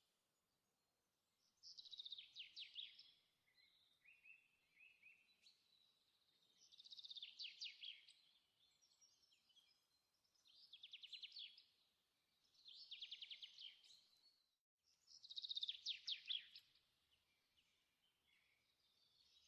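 A songbird singing, faint: short, rapid trilled phrases repeated every few seconds, with quiet gaps between them.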